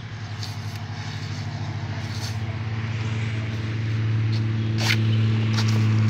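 A motor vehicle's engine running with a steady low hum that grows steadily louder as it approaches. A few sharp short strokes sound over it as a hand blade cuts into the date palm trunk.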